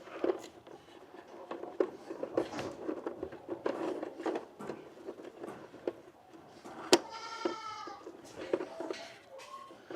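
Irregular clicks and knocks of handling, the sharpest about seven seconds in. Right after it a goat bleats once, a call of about a second.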